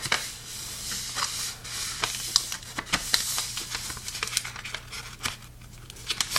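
A sheet of paper being folded and creased by hand: rustling and crinkling with many short sharp crackles as the folds are pressed flat.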